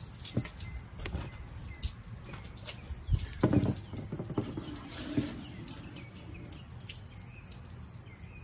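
Scattered wet clicks and knocks of a knife and hands working a mahi-mahi on a cleaning board, as the slime is scraped off and the skin is loosened for peeling. The loudest knocks come in a short cluster about three and a half seconds in.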